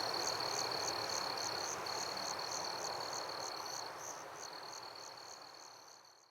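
Night-time chorus of crickets and other insects: a continuous high trill that breaks off briefly twice, with a higher chirp repeating about three times a second above it, over a steady hiss. The whole chorus fades out near the end.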